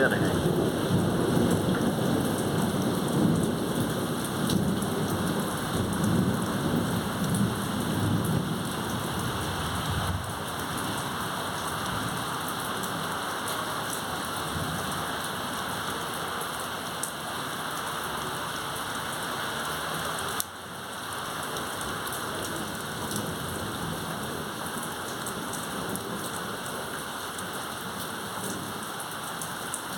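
Heavy rain pouring steadily during a thunderstorm, with a low roll of thunder that dies away over the first ten seconds or so.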